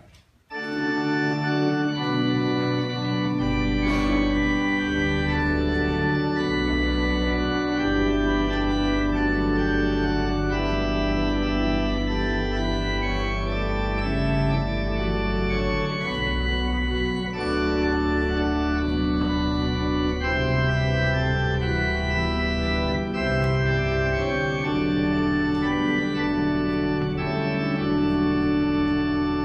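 Organ playing slow sustained chords. It starts about half a second in, and deep held bass notes join a few seconds later.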